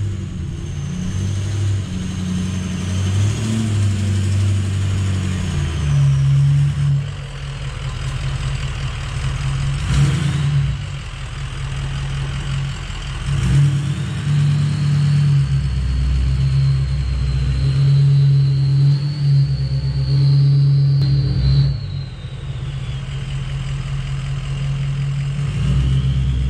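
A vehicle's engine running under varying load, its pitch stepping up and down every few seconds, with a thin high whine that slowly rises and falls above it.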